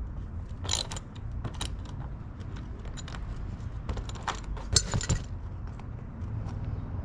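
Ratchet socket wrench and spanner loosening the motor-mount bolts on a boat transom: scattered metal clicks and clinks of the tools, with a louder metallic clank about five seconds in.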